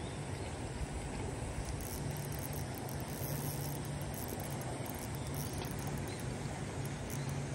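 Steady noisy background with a low hum that comes and goes.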